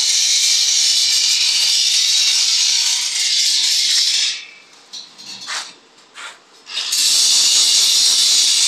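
Electric arc welding on a steel frame: the arc gives a loud, steady crackling hiss that breaks off about four seconds in, sputters in a few short bursts as it is struck again, then settles back into the steady hiss about seven seconds in.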